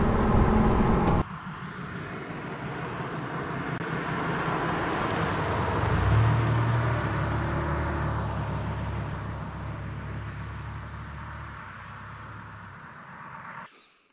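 A motor vehicle passes: its engine hum and road noise swell to a peak about six seconds in, then fade away, over a steady high chirring of crickets. The first second is a louder rush of noise that cuts off abruptly.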